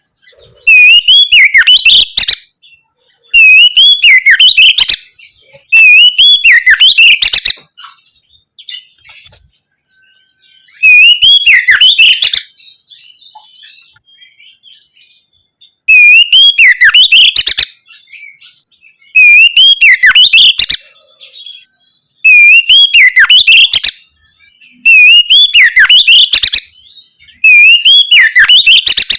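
Oriental magpie-robin (kacer) singing in full, loud voice: short phrases of whistled notes gliding up and down, each about a second and a half long, repeated every few seconds. A longer pause about a third of the way in holds only faint soft twittering.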